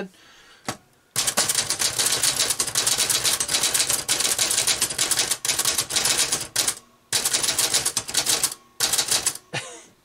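We R Memory Keepers Typecast plastic-bodied manual typewriter being typed on: a fast run of key strikes starts about a second in, breaks off briefly twice, and ends with a short last burst.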